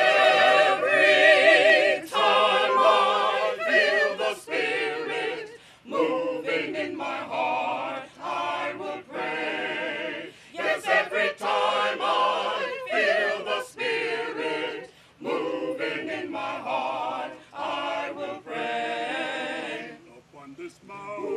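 A mixed choir of men's and women's voices singing together in long held phrases, with short breaks between phrases.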